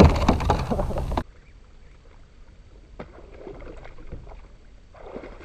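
Water splashing and knocks at the side of a kayak as a hooked bass is fought at the surface. About a second in the sound drops suddenly to faint, muffled splashing and small knocks.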